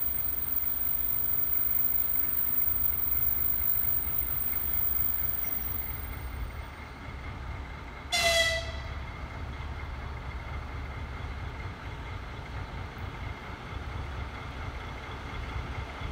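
A TEM14 diesel shunting locomotive approaching with a train of tank wagons: its engine a steady low rumble, and about halfway through one short toot of its horn.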